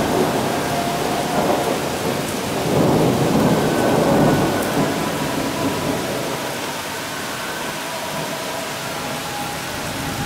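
Heavy summer downpour falling steadily, with rolling thunder rumbling in swells at the start and again about three to four seconds in, then easing to steady rain.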